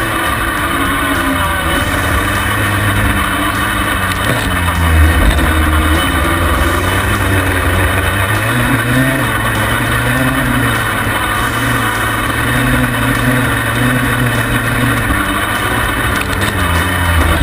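Yamaha Banshee quad's twin-cylinder two-stroke engine being ridden, its revs rising and falling over and over with a surge about five seconds in. It is picked up close from a camera mounted on the footpeg.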